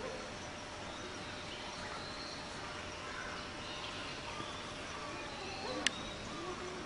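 Steady background noise with faint, scattered chirping animal calls and one sharp click about six seconds in.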